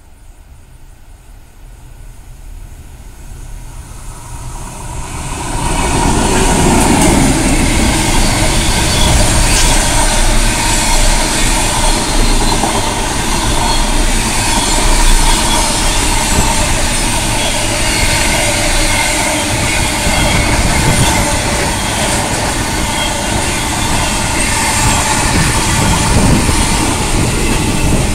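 Aurizon container freight train hauled by two diesel-electric locomotives, approaching and growing louder over the first six seconds, then passing close by. A long string of loaded container wagons follows, rolling past with a steady rumble and clatter of wheels on the rails.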